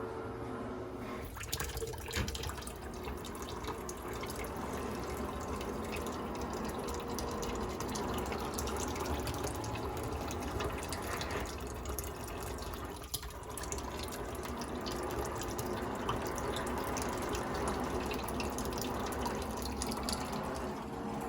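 Building renovation work: a steady rushing, spattering noise thick with small clicks, and a few sharper knocks about two seconds in and again past the middle.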